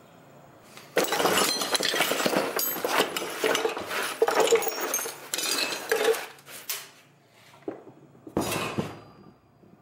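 Small metal parts, tools and plastic parts bags swept and dragged off a workbench top, clattering and clinking with plastic rustling, then one more short clatter near the end.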